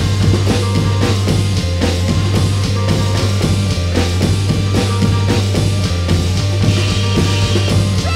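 Indie rock music: a drum kit playing over a steady, droning low bass note.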